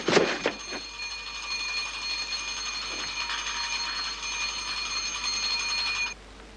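Electric call bell ringing without a break for about five seconds, then cutting off suddenly: a ring for the servant.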